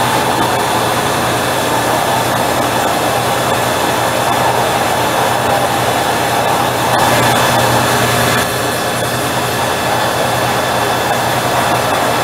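Steady, loud workshop machine noise: an even hiss over a low hum, a little louder for a second or so around the middle.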